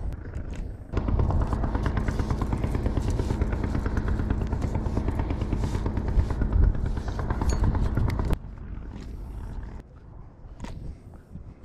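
Spinning reel cranked fast during a jigging retrieve, a rapid, even whirring clatter of its gears close to the microphone, starting about a second in and stopping abruptly near eight seconds.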